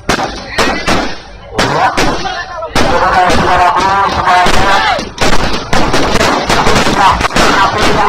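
Fireworks and firecrackers going off: a few separate sharp bangs, then from about three seconds in a dense, rapid string of bangs like a machine gun.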